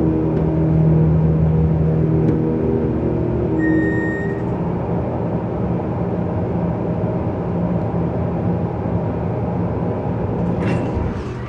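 KONE hydraulic elevator running: a steady low hum with several pitched tones from the machinery. A short high beep comes about four seconds in, and a few sharp clicks come near the end.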